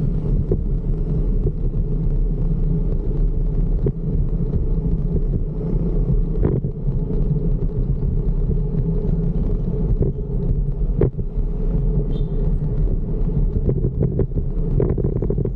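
Steady low rumble of wind on the microphone and road noise while riding a fixed-gear bike, with a few sharp knocks from bumps in the road.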